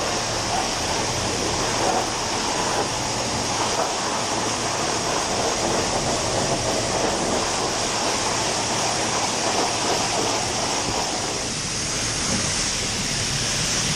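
High-pressure water jet from a car-wash pressure-washer wand blasting a degreased truck engine bay: a loud, steady rushing hiss of spray striking the engine and hood, with a low steady hum underneath.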